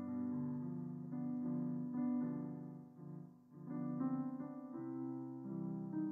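Solo piano playing a slow hymn in struck chords, with no singing.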